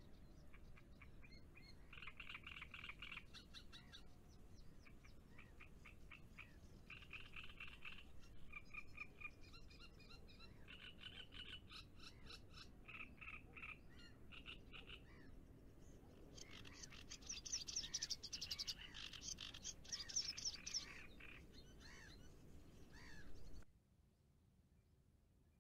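Frogs calling: bouts of rapid, rattling croaks about a second long, one after another, louder and denser for a few seconds in the second half, then cutting off suddenly near the end.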